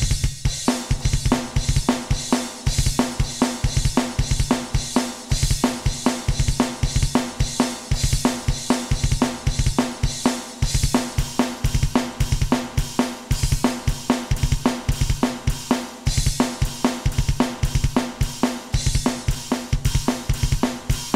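Alesis Nitro Mesh electronic drum kit played through custom drum samples and recorded direct: rapid kick drum strokes under snare hits with cymbal and hi-hat wash, in a busy metal-style groove. It comes in abruptly right at the start.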